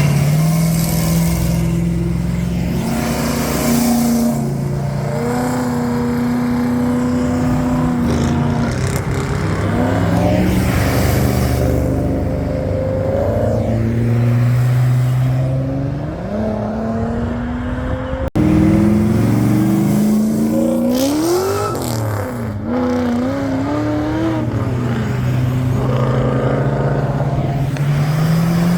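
Muscle-car V8 engines revving and pulling away, their note climbing and falling again and again. There is an abrupt cut about 18 seconds in, after which the revving goes on.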